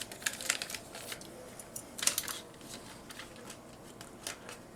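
Light clicks and taps of a die-cast and plastic toy figure being handled on its plastic display stand, with a quick cluster of clicks about two seconds in.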